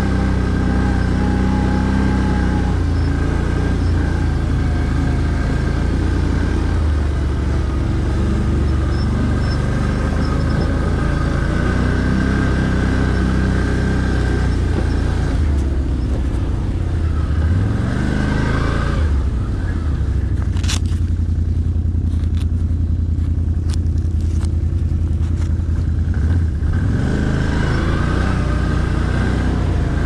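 Can-Am ATV engine running as the quad is ridden at low speed, its pitch sweeping up a little past the middle and again near the end as the throttle changes. For several seconds in the second half the sound is duller, with a few sharp clicks.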